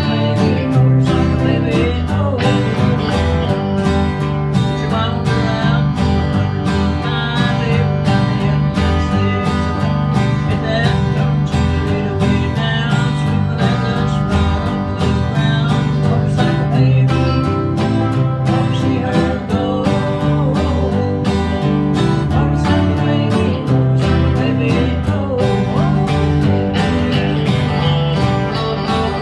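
Country song played live by a small band: two strummed acoustic guitars, electric guitars and an electric bass, with a steady strummed rhythm.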